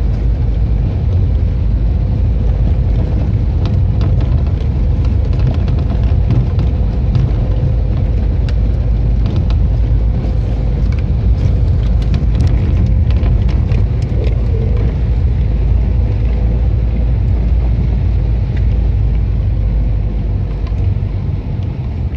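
Car driving on a snow-covered road, heard from inside the cabin: a steady low rumble of engine and tyres with a faint steady hum, and scattered light clicks, thickest around the middle.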